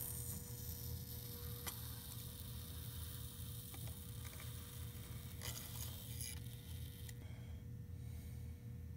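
Faint, steady low electrical hum from a hot-tip tool melting a channel into foam, with a few brief faint crackles.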